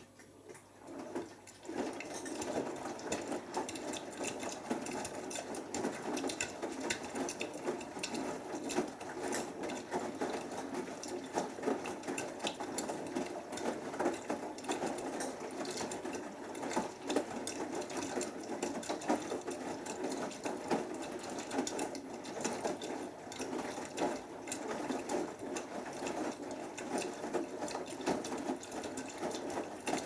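Beko WMB81445L front-loading washing machine starting its drum about a second or two in, then tumbling wet laundry through water in the main wash: a steady churning and sloshing with many small knocks as the load drops.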